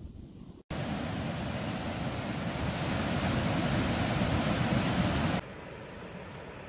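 Water from a waterfall rushing in a steady, even hiss. It starts abruptly about half a second in, then drops suddenly to a quieter rush about five seconds in.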